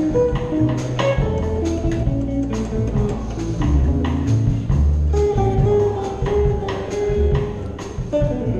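Small jazz group playing live: an archtop electric guitar carries a melody of held single notes over upright double bass and a drum kit keeping time.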